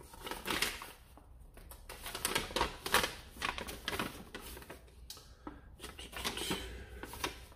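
A folded paper instruction leaflet rustling and crinkling as it is handled, unfolded and turned over, in irregular bursts of rustles.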